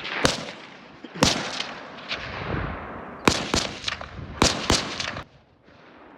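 About six gunshots fired one at a time at an uneven pace, each with a short echoing tail. Two come close together about three seconds in, and two more about a second later.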